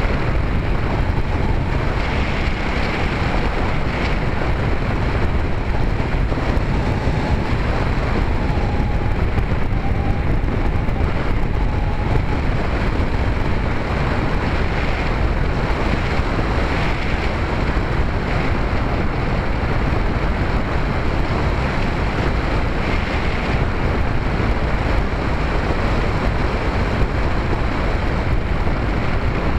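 Steady rush of airflow over the microphone of a key-fob camera riding on a Bixler 2 RC plane in flight, mixed with the drone of its electric motor and propeller.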